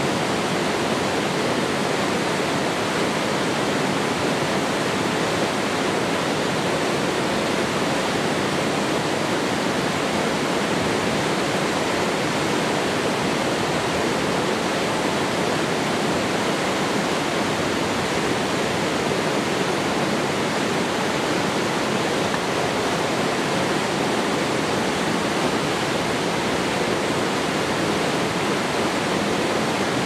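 Mountain-stream waterfall pouring over rocks into a pool: a loud, steady rush of white water with no change throughout.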